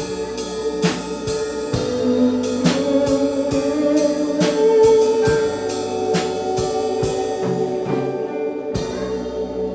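Live church worship band playing without singing: held keyboard chords and guitar over a steady drum beat, the drums dropping out shortly before the end.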